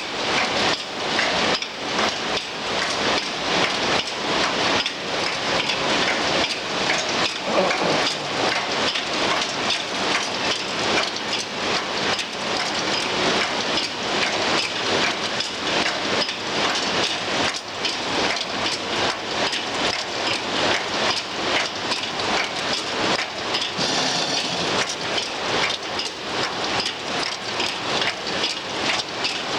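Rotary-cage PP woven-bag cutting machine running, a steady, fast mechanical clatter of closely repeated knocks.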